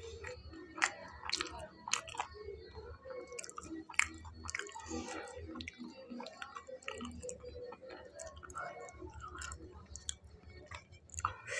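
A man chewing a mouthful of batter-fried pakora close to a clip-on microphone: wet chewing with irregular crisp clicks and crunches.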